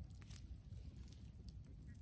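Brushwood bonfire crackling faintly: scattered small snaps and pops over a low rumble.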